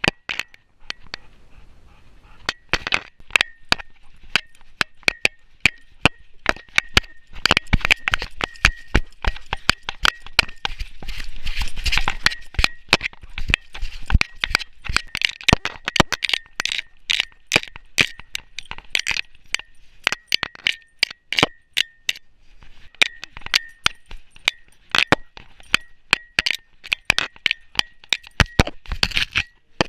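Rapid, irregular metallic clicking and clinking from a camera rig and tags jostling on a running dog, many clicks followed by a brief faint ring.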